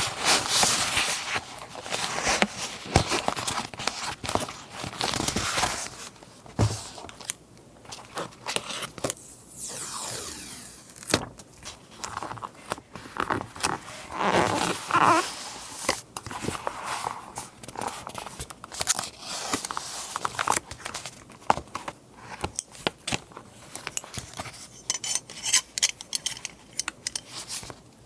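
Close-up rustling and crinkling of paper and scrapbooking materials being handled, with many small irregular taps and scrapes.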